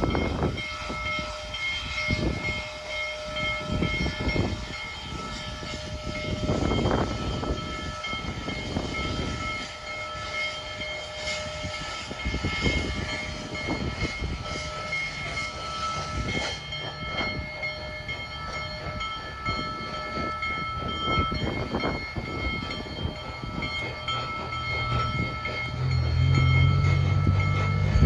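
Union Pacific Big Boy 4014, a 4-8-8-4 articulated steam locomotive, working hard upgrade under load with its exhaust chuffing, heard from a vehicle pacing alongside. A louder low-pitched sound comes in near the end.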